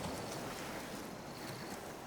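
Calm sea waves lapping on a beach: a steady wash of water that swells a little at the start and then eases slightly.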